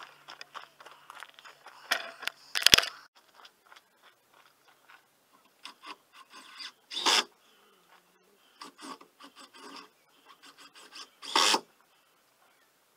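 Handling noise from a camera being picked up and moved: irregular rubbing and scraping against the microphone, with a sharp knock just under three seconds in and louder scrapes about seven and eleven seconds in.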